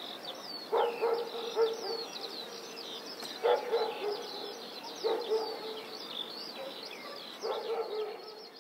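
Outdoor birdsong, many short chirps and whistles, with a dog barking about five times at irregular intervals. It all fades out near the end.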